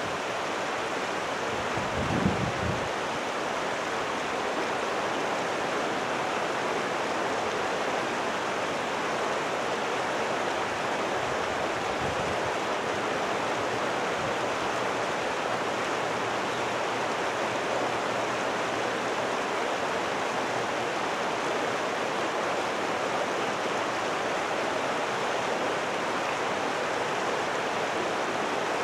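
Steady rushing noise with no rhythm, with a brief low thump about two seconds in.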